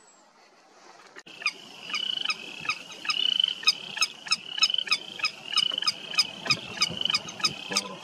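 Willet calling: a rapid, even series of sharp notes, about three a second, starting about a second in.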